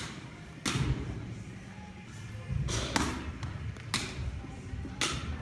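Baseball bat hitting soft-tossed balls into a practice net: a series of sharp cracks, about five hits coming a second or so apart at an uneven pace.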